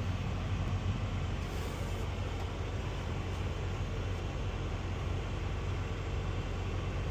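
Case IH tractor's engine running steadily, with a constant low hum, heard from inside the cab.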